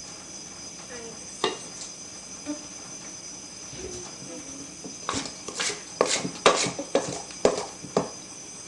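Rubber spatula scraping and knocking against a mixing bowl: a single knock about a second and a half in, then a quick run of knocks and scrapes in the second half, over a faint steady high whine.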